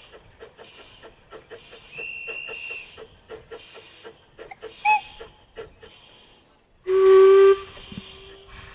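Quarry Hunslet narrow-gauge steam locomotive working a passenger train, its exhaust beating about four times a second over a hiss of steam, with a brief high squeal about two seconds in. Near the end it gives a short, loud blast on its steam whistle.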